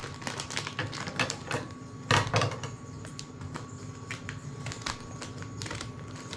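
Scissors snipping into a toy wrapper, with the wrapper crinkling as it is handled: a quick irregular series of sharp clicks, and a louder crinkle about two seconds in.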